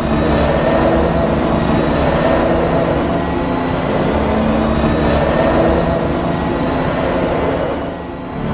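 Batpod motorcycle engine sound effect: a heavy engine running steadily, with thin high tones over the rumble. It drops off briefly near the end, then picks up again.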